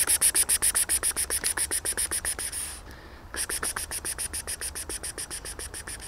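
A person calling cats with a rapid, hissing "ks-ks-ks", about seven short bursts a second, in two long runs with a brief break about three seconds in. It is a call that brings cats running.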